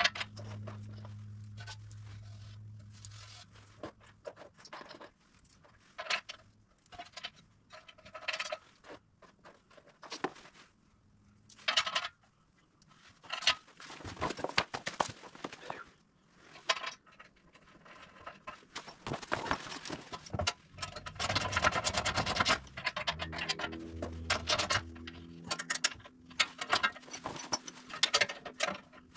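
Hand tools and steel bolts clinking and scraping against metal while a front bumper is bolted onto a UTV's frame. The sounds are short and irregular, with denser stretches of clatter in the second half.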